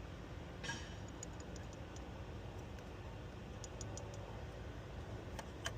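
Faint scattered clicks and a brief scrape about half a second in, over a low steady hum: small car parts such as a coolant hose and its fittings being handled.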